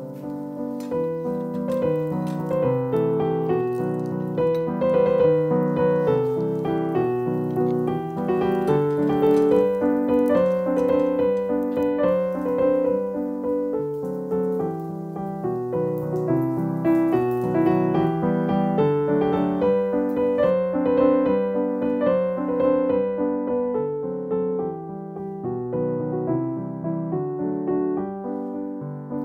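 Background piano music, a gentle melody of steady, evenly paced notes.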